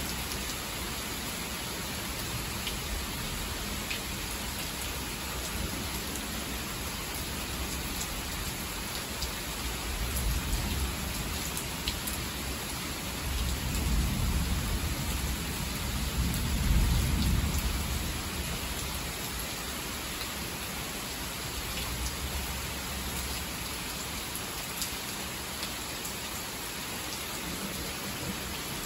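Heavy rain pouring steadily, with a long low rumble of thunder swelling from about ten seconds in, loudest about seven seconds later, then fading back into the rain.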